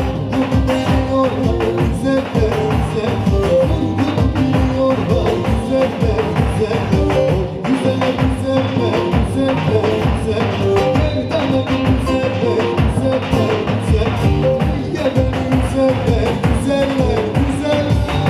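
Live Turkish folk dance music for a halay, played by a band, with a steady beat and a continuous melody line.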